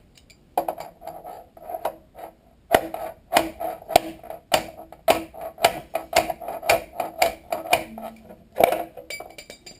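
Front axle of a motorcycle being knocked out of the wheel: sharp metal strikes, light at first, then a regular run of about two a second, each leaving a short metallic ring.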